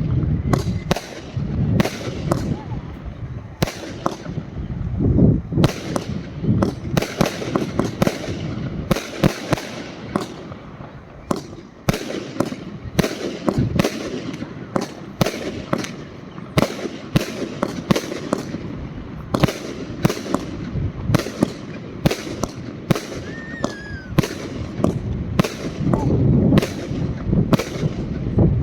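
Svea Fireworks 'Spartacus' fireworks cake firing shot after shot: a string of sharp bangs, two or three a second, with a low rumble between them.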